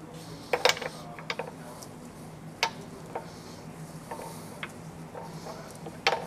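Pad driver being fitted and turned by hand on a WerkMaster grinder's drive train to check that it spins freely: a handful of irregular clicks and knocks, the loudest ones about half a second in and near the end.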